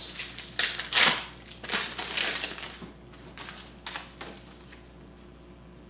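Crinkling and tearing of a Topps Chrome football card pack's foil wrapper as it is ripped open, loudest in the first two and a half seconds. A few fainter rustles and clicks follow as the cards are handled.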